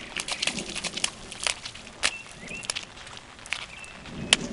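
A child's footsteps in sandals on wet pavement: irregular slapping, clicking steps, with one louder slap near the end.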